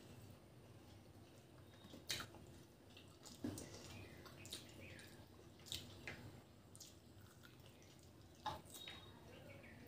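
Faint wet mouth smacks and clicks of someone chewing, with squelching of fingers mixing rice and curry: about half a dozen short, sharp clicks spaced a second or so apart over near silence.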